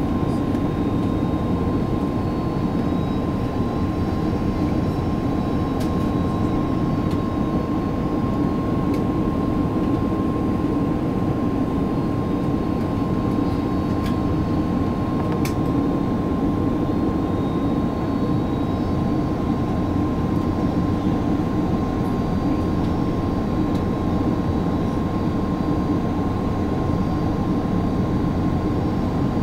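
Airbus A330-300 cabin on final approach: the steady rumble of the jet engines and rushing air, with a steady thin whine above it.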